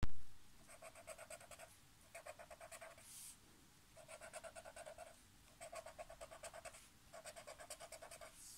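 Felt-tip marker rubbing on squared paper in rapid back-and-forth strokes, about ten a second, in five runs of roughly a second each, colouring in small squares. A short thump right at the start.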